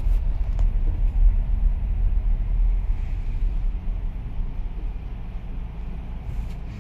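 Low, steady road and tyre rumble heard inside the cabin of a moving Toyota Innova Hycross, easing gradually quieter toward the end.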